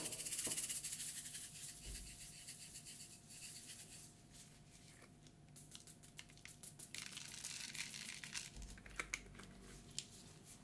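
A shaker bottle of tiny sugar sprinkles shaken in quick rattling bursts, the sprinkles scattering onto the ice cream and the steel pan. A few sharp clicks near the end.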